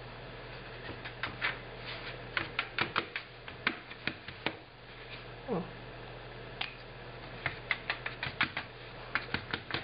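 Plastic squeeze bottle of orange craft paint squeezed out in dabs, giving runs of small quick clicks and pops: one run about two and a half seconds in, and a denser one over the last two seconds.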